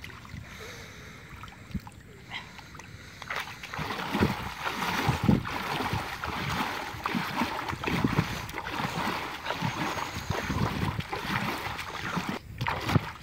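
Hands splashing and churning shallow muddy water, groping along the bottom for fish by hand. Fairly quiet at first, then from about three and a half seconds in a steady run of quick, irregular splashes.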